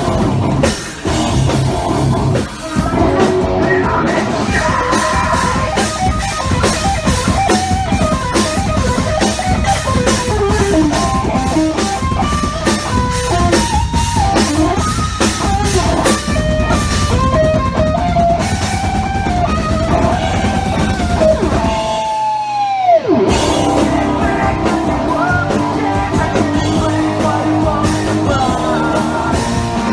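Rock band playing full-on at a soundcheck: drum kit, distorted electric guitars and vocals. About two-thirds through, the band cuts out for a moment under one steep downward pitch dive, then comes back in.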